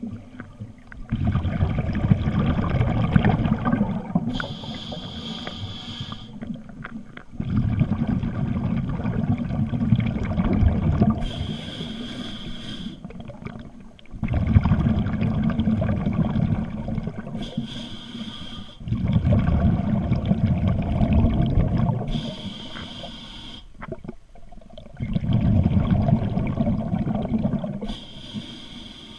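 Scuba diver breathing through a regulator: a short hissing inhalation through the demand valve, then a longer, louder burst of exhaled bubbles, repeating about every six seconds, five breaths in all.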